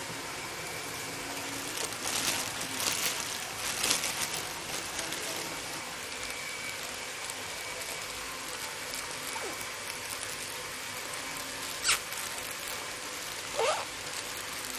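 A thin clear plastic bag crinkling and rustling as leafy greens are packed into it, heaviest from about two to four seconds in, over a steady background hiss. Later come a single sharp click and a short rising squeak.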